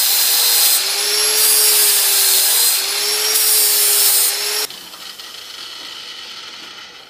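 Electric angle grinder running and grinding the steel edge of a railroad-spike knife blade, in three passes with brief breaks about a second in and near three seconds, its motor whine rising a little in each pass. About two-thirds of the way through the grinding stops abruptly, leaving a much quieter sound that fades near the end.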